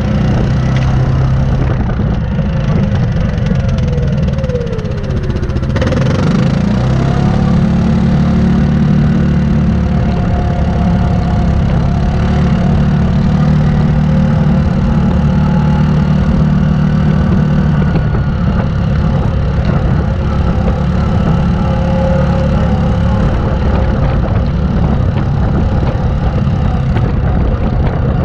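Yamaha Grizzly 700 ATV's single-cylinder engine running under way on a trail. It eases off about four to five seconds in with a falling pitch, there is a sharp knock near six seconds, and then it picks back up with a rising pitch and runs steadily.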